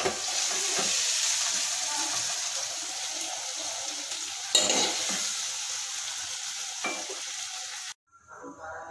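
Hot fried onion and tomato sizzling with the gas just turned off, a steady hiss that slowly fades, with a few sharp metal clinks; the sound cuts off abruptly near the end.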